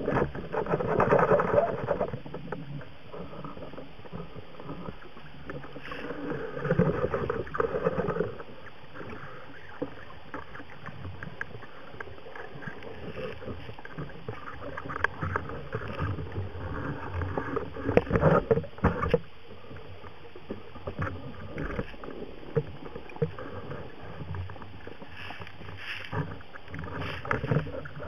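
Muffled underwater noise picked up through a camera housing on a speargun: surges of water rush as the diver moves, with scattered clicks and knocks, and several louder swells along the way.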